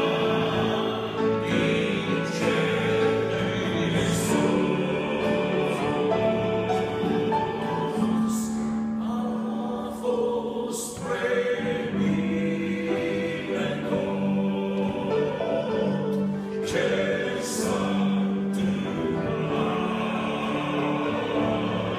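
Male vocal group singing a Christian song in close harmony, holding long sustained chords.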